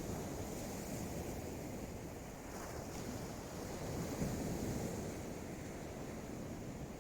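Sea waves washing on the beach, mixed with wind buffeting the microphone.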